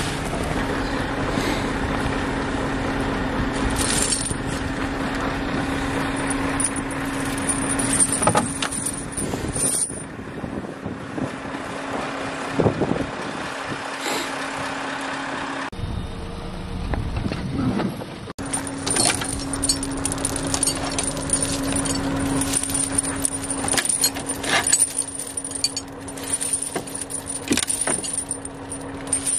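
Steel snow chains on a timber truck's wheels clinking and jangling as they are handled and taken off, over the steady hum of the truck's running engine.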